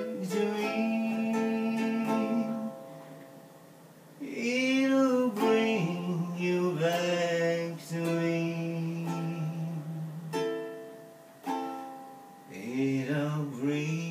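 Live acoustic song: strummed chords on a plucked string instrument with a voice singing long, bending held notes. Between phrases the chords ring out and die away.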